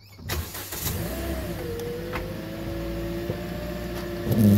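Car engine starting on a freshly replaced battery: it catches within the first second, flares up and drops back to a steady idle. A louder low sound comes near the end.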